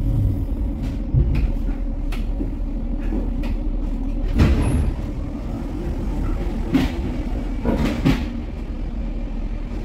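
Cologne Stadtbahn car running along the track, heard from inside the car: a steady low rumble with scattered clicks and knocks. The loudest knock comes about halfway through, and a few more come close together near the end.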